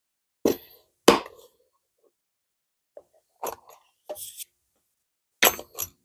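Several separate sharp knocks and clinks, like hard objects being handled on a workbench: two loud ones in the first second or so, a couple of lighter ones around three and a half seconds, a short scrape or rustle about four seconds in, and two more knocks near the end.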